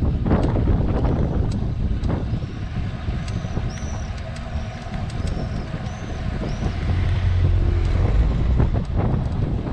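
Wind buffeting the microphone of a camera riding on a moving tandem bicycle, a steady low rumble mixed with road noise that gets heavier near the end, with a few faint knocks. A few short high chirps come through in the middle.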